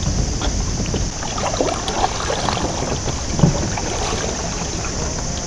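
Wind rumbling on the microphone, with a steady high hiss over it.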